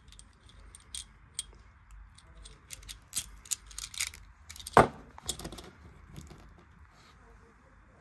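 Small metal pieces clinking and rattling as they are handled, with one heavier knock about five seconds in.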